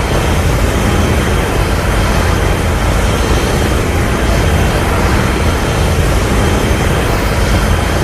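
A kaiju-film sound effect: a loud, sustained rushing blast with a heavy low rumble, unbroken throughout.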